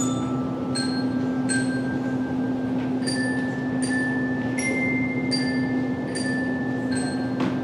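Tuned metal percussion playing a slow melody: single bell-like notes struck about every three-quarters of a second, each ringing on after the strike, over a steady low hum.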